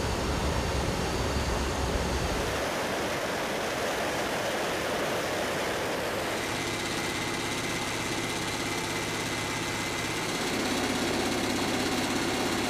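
Steady drone of aircraft engines and propellers in flight, mixed with rushing wind. The drone changes character about two and a half seconds in and again around six seconds in, where faint steady tones appear.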